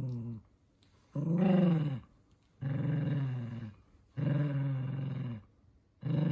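Toy poodle giving a run of long, drawn-out growling grumbles, each about a second long and following one after another. The dog is protesting at the socks on its feet.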